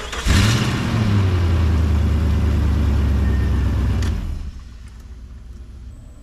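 1999 Jeep Grand Cherokee engine starting suddenly with a short rise in pitch, then running steadily for about four seconds before being switched off. It is being run on a newly fitted ignition switch and harness.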